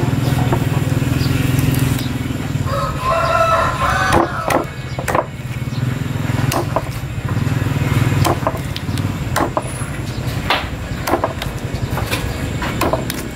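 A steel knife knocks and scrapes against a wooden chopping block as a dorado fillet is skinned and trimmed, giving scattered sharp taps. A rooster crows once about three seconds in, over a low hum that comes and goes.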